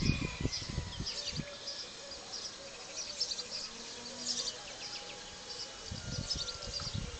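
Small birds chirping, many short high calls. Low gusts of wind rumble on the phone's microphone in the first second or so and again near the end.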